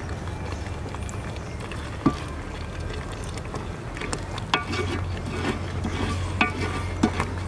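Thick cashew and onion gravy being stirred in a large metal pot with a wooden spatula: the spatula knocks and scrapes against the pot, once about two seconds in and then in a run of clicks from about halfway on, over a steady low rumble.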